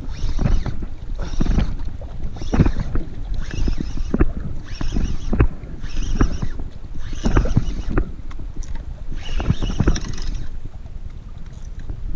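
Penn Slammer 10500 spinning reel being cranked against a hooked fish, a burst of gear whir and clicks with each turn of the handle about once a second. Wind buffets the microphone underneath.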